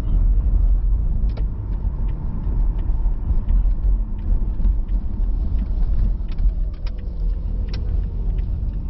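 Car driving on a city road, heard from inside the cabin: a steady low rumble of road and engine noise, with a few short clicks.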